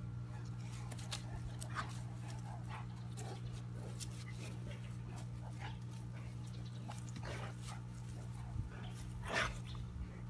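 Two Cane Corsos play-wrestling, with a few brief dog vocalisations, the loudest near the end, over a steady low hum.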